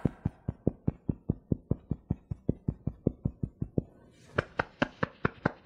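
Fingertips tapping on the collarbone point in EFT tapping: a steady run of soft taps, about six a second. A short pause comes about four seconds in, then the tapping resumes under the arm, louder.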